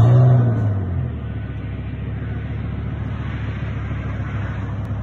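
Pickup truck engine flaring up loudly at the very start, then settling into a steady low idle.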